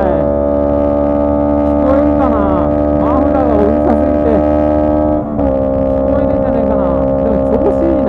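Honda CB125T's twin-cylinder engine running at steady revs with its silencer removed, an even, loud drone. About five seconds in it dips briefly and settles a step lower in pitch.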